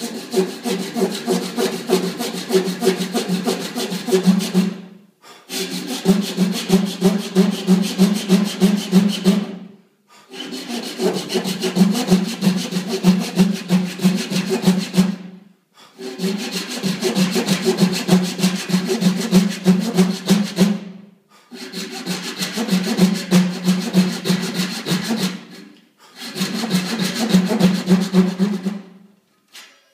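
Handsaw ripping lengthwise through a 7/8-inch wooden dowel: rapid, even saw strokes in six runs of about five seconds each, with a brief pause between runs.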